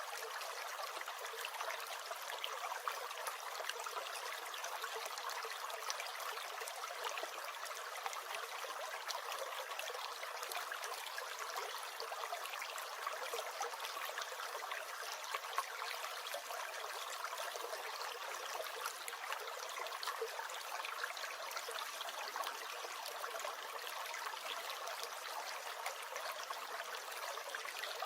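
A small brook gurgling steadily: an even rush of trickling water with no deep rumble.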